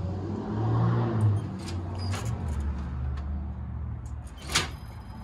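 A metal radiator shutter assembly being shifted and handled: a low rumble as it moves, a few light clicks from the louvers, and one sharper metallic click near the end.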